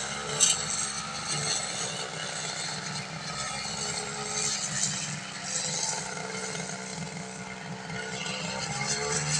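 Brush cutter (grass-cutting machine) engine running steadily, with small shifts in engine speed near the start and the end.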